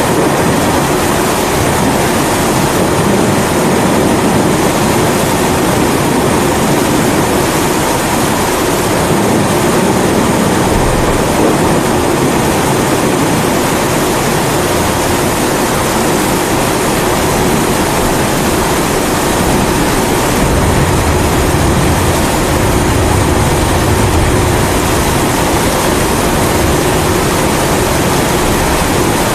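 Steady roar of a pressurised kerosene stove burner (a Primus-type babour) mixed with steady rain. A low rumble of thunder swells about a third of the way in and again past two-thirds.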